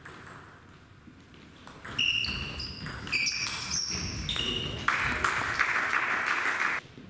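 A table tennis rally: a quick run of sharp, high-pitched ticks as the ball strikes the bats and the table. About two seconds in total, followed by a burst of crowd noise lasting about two seconds.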